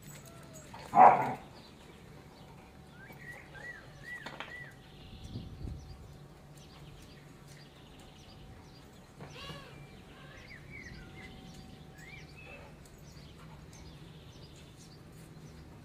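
A dog gives one short bark about a second in. Birds chirp in short repeated arched calls.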